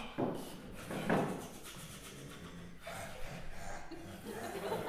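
Free-improvisation vocal sounds made with breath and mouth rather than words: two loud breathy, noisy bursts about a second apart, then softer breath and mouth noises.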